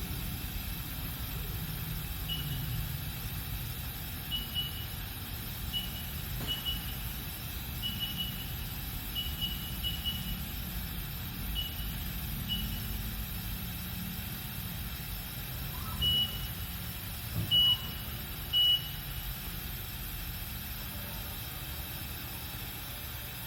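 Haas GM-2-5AX gantry CNC machine with a steady low hum. Over it come short, high electronic beeps at one pitch: about a dozen brief ones, unevenly spaced, in the first half, then three louder, longer beeps about two-thirds of the way through.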